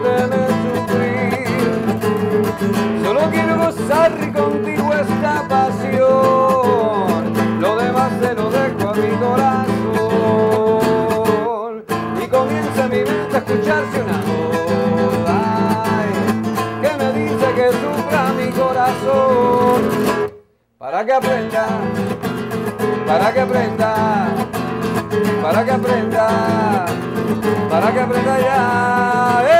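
Nylon-string classical guitar strumming chords under a harmonica melody with bending notes, an instrumental break in a romantic song. The sound drops out briefly about two-thirds through.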